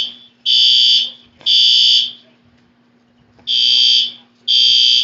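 Fire alarm beeping in the temporal-three evacuation pattern: three loud, high-pitched beeps of about half a second each, a pause of about a second and a half, then the next round starting.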